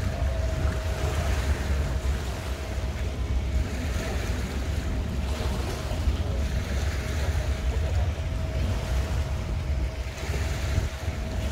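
Wind buffeting the microphone in a steady low rumble, with a faint thin steady hum above it.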